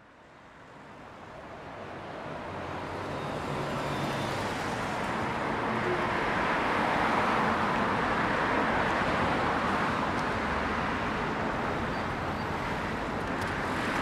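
City street traffic noise: a steady wash of passing cars, fading in over the first few seconds and then holding steady.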